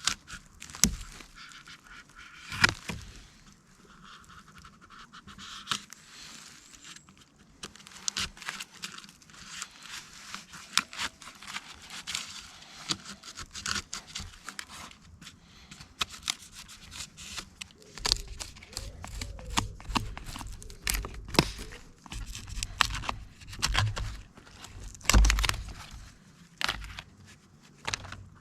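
Birch bark and kindling being torn, crumpled and scraped by hand while a campfire is laid: a dense run of sharp crackling, tearing and scraping noises, with low thuds joining in from about halfway through.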